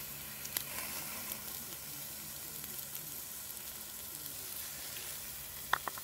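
Homemade garlic butter sauce sizzling as it melts on a hot tri-tip steak on a wire grill over campfire coals. A steady sizzle, with a sharp pop about half a second in and a couple more near the end.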